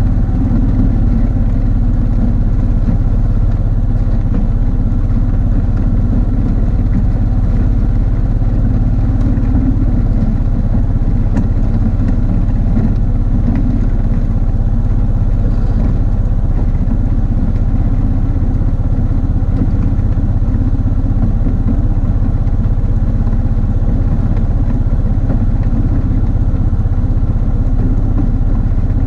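Quad (ATV) engine running steadily at an even, low pitch while plowing snow.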